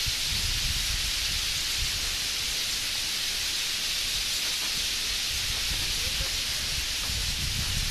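Huge flock of bramblings in flight overhead, thousands of birds massed together into a steady, dense hiss.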